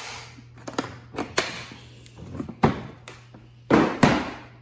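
Hard plastic tool cases being handled inside a plastic Milwaukee Packout toolbox: a run of clicks and knocks, then two louder scraping rushes near the end as a case is lifted out.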